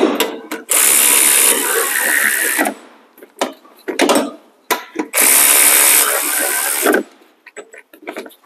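Power ratchet running in two steady spells of about two seconds each, with a few short clicks between them, as it drives in the brake caliper bracket bolts.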